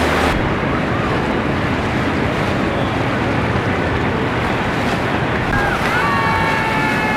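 Steady rush of choppy river water and boat wash, with wind buffeting the microphone. Near the end a drawn-out high-pitched call sounds over it.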